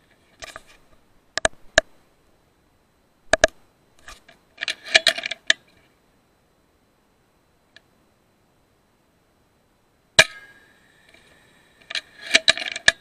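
A single sharp shot from an FX Impact M3 .22 PCP air rifle about ten seconds in, ringing on briefly after it. Around it, clusters of sharp metallic clicks and clinks from the rifle's action being worked.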